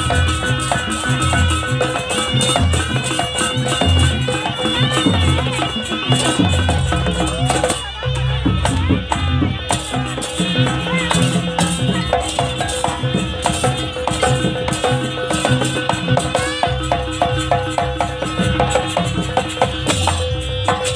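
Live jaranan music from a traditional Javanese ensemble: repeated drum strokes under a steady held note, with rattling percussion throughout.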